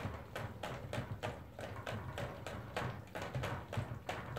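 A dog lapping at the metal spout of a water bottle clipped to its crate, each lick a sharp click in a steady rhythm of about four a second.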